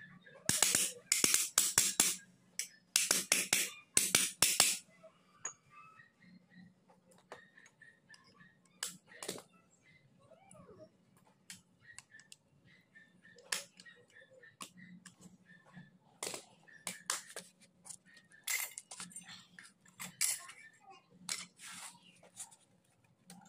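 Metal parts of a scooter torque drive and hand tools clicking and clinking as they are handled during reassembly: a quick run of loud clicks in the first few seconds, then scattered clinks and taps.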